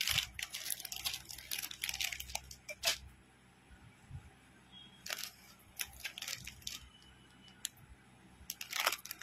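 Clear plastic jewellery packets crinkling as they are handled, in short crackly bursts: a cluster in the first three seconds, more around the middle, and again near the end, with quieter stretches between.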